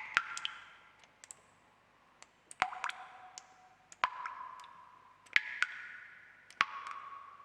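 Water drops dripping one at a time at uneven intervals, each a sharp plink followed by a short ringing tone that fades, some rising quickly in pitch; a quieter lull about a second in before the drips pick up again.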